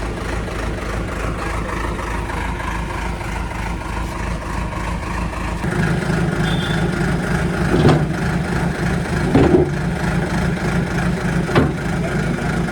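Heavy diesel engine running steadily at idle, then picking up and running harder about halfway through. Three sharp knocks over the second half.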